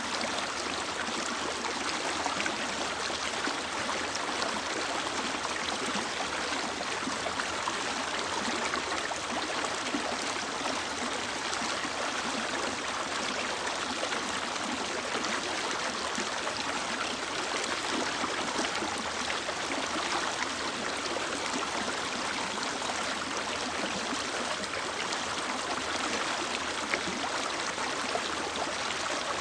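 Mountain stream rushing and splashing over rocks, a steady even flow.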